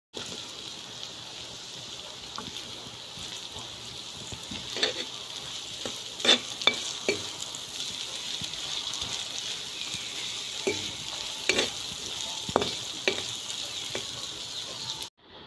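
Sliced onions, garlic and green chillies sizzling in hot oil in a black iron wok, stirred with a spatula that knocks and scrapes against the pan. The sizzle is a steady hiss throughout, with a handful of sharp knocks from the spatula through the middle.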